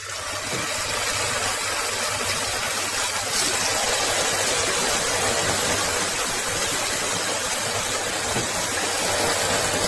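Marinated chicken pieces sizzling in a little hot oil as they shallow-fry; the sizzle starts abruptly as they go into the pan and then holds steady.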